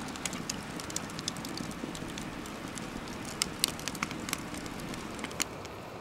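Wood campfire burning, crackling steadily with irregular sharp pops from the logs, a few louder pops past halfway.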